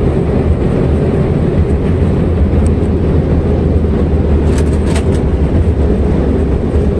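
Airliner rolling out on the runway just after touchdown: a loud, steady low rumble with no clear pitch.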